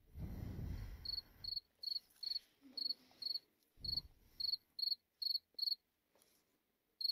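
A cricket chirping: short, high trilled chirps about two a second, a dozen in all, pausing near the end before one last chirp. A low rumble sounds under the first second and a half and again briefly around four seconds.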